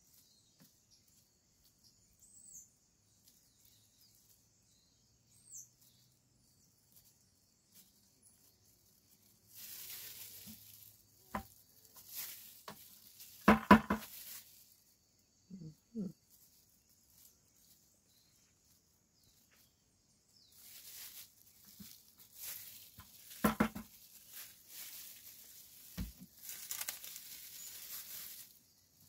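A hand uncapping tool scraping the wax cappings off a honeycomb frame. There are two spells of scraping, the first starting about a third of the way in, each with a few sharp knocks that are the loudest sounds.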